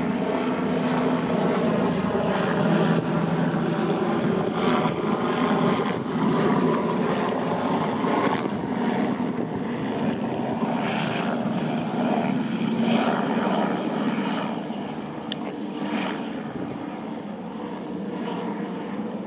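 A steady engine drone with a low hum, easing off over the last few seconds.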